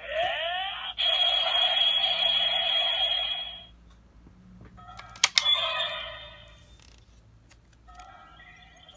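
Ultraman Orb Ring toy playing electronic sound effects through its small speaker: a rising swoop into a bright, buzzing chime lasting a few seconds, then a sharp double click about five seconds in, followed by shorter electronic tones.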